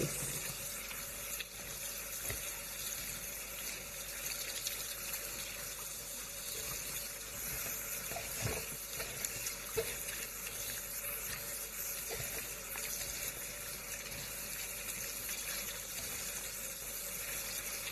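Water and small raw anchovies being swished and rubbed by hand in a plastic colander to wash off their scales, over a steady hiss of running water, with a few faint ticks.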